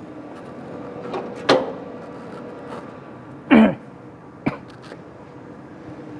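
Knocks and clicks of a DTF printer's film roller and its fittings being handled, over a steady machine hum. There are three main strokes: a sharp knock, then a louder, slightly longer thud with a falling pitch, then a sharp click.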